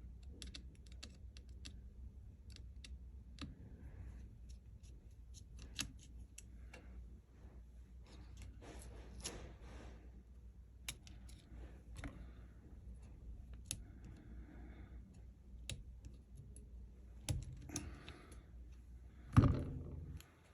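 Small precision tools clicking and tapping irregularly against the tiny screws and metal parts of an iPhone 15 Pro while its internal plate is unscrewed, with one louder knock near the end.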